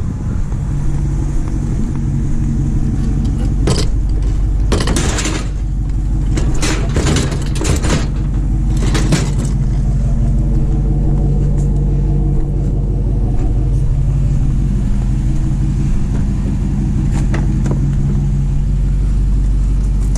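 Vehicle engine and road noise running steadily while driving, with a cluster of clattering knocks between about 4 and 9 seconds in.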